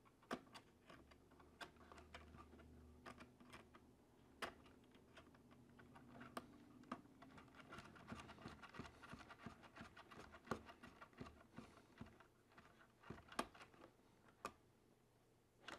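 Faint, scattered clicks and scratches of small light-kit parts being handled and pushed into place against the hard plastic body shell of a Traxxas TRX-4M Bronco.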